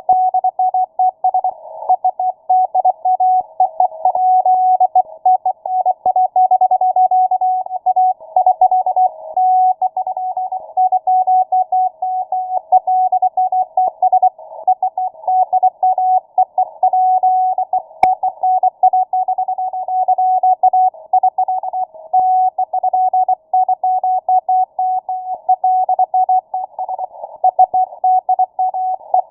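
Morse code on shortwave, heard through an SDR's narrow filter: a single steady tone keyed rapidly on and off, with weaker keyed signals and noise sharing the passband. A brief click about 18 seconds in.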